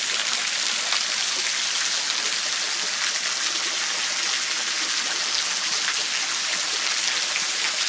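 Water dripping and trickling in thin streams from an icicle-hung rock overhang, splashing steadily into a pool below as a dense patter of drops.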